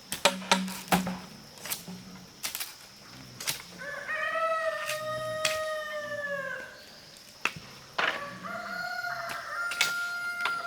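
Rooster crowing: one long crow about four seconds in and a second crow near the end, after a run of sharp knocks in the first few seconds.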